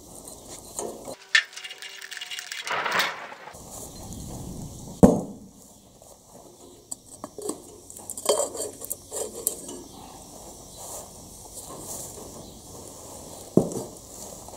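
Metallic clinks and clatter as the bolt of a cartridge oil filter housing is loosened and the steel canister is worked off the engine, with a sharp clank about five seconds in and another near the end.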